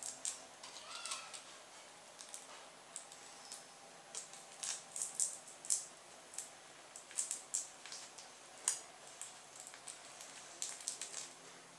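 Fabric and velcro being handled and pinned by hand: scattered light rustles and small clicks, irregular and close.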